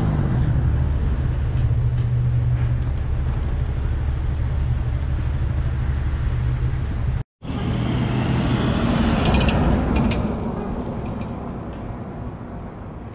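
A car driving in city traffic: a steady low engine and road rumble. It drops out abruptly for a moment about seven seconds in, then carries on and fades toward the end.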